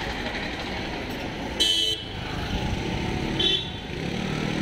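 Street traffic noise with two short vehicle horn honks: a louder one about a second and a half in and a briefer, fainter toot near three and a half seconds.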